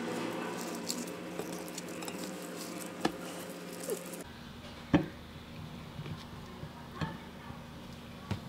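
Romaine lettuce leaves rustling as they are handled and laid on a plate, with light clicks and knocks against the plate; the sharpest knock comes about five seconds in.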